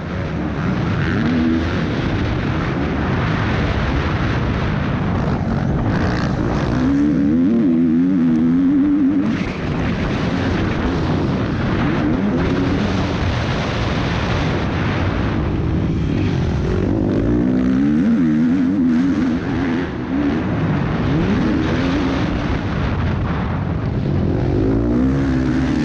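Motocross bike engine heard from the rider's helmet, revving up and falling back again and again as it accelerates and shifts through the gears, over a steady rush of wind.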